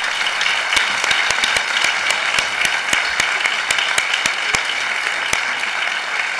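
Applause from a roomful of people: steady clapping of many hands, with some single sharp claps standing out.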